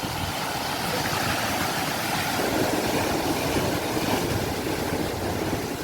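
Sea waves washing in, a steady rush of surf that swells about a second in and eases off toward the end.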